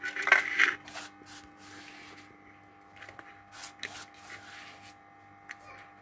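Hand scraping and scooping coarsely pounded dry ginger and spices out of a stone mortar onto a steel plate: scattered short scrapes and rustles, the loudest about half a second in, over a faint steady hum.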